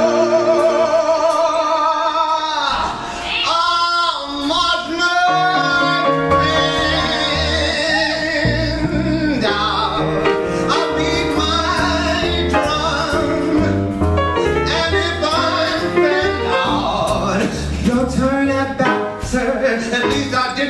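Live band music with a male singer holding long notes with vibrato; a steady bass line comes in about five seconds in.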